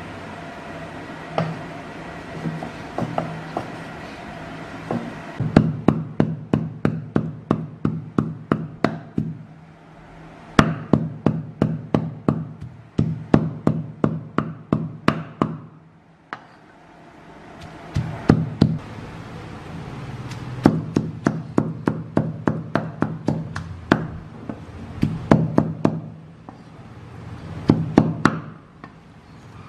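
Meat cleaver chopping on a wooden chopping board, mincing raw pork. After a few scattered knocks, fast chopping starts about five seconds in and goes on in runs of about four strokes a second, with brief pauses between runs.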